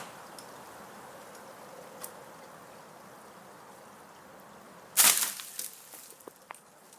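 A single loud knock about five seconds in, followed by a few light clicks, over a faint steady background.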